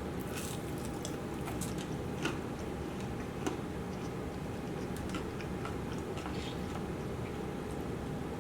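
Close-up eating sounds: chewing, with scattered short crunchy clicks of bites and mouth noises, over a steady low background hum.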